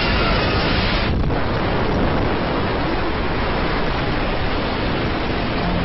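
Loud, steady rushing noise with no tone in it, much like roaring wind; the higher part thins out briefly about a second in.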